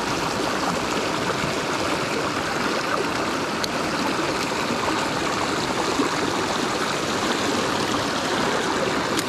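Mountain headwater stream rushing steadily over rocks and through a small cascade of whitewater.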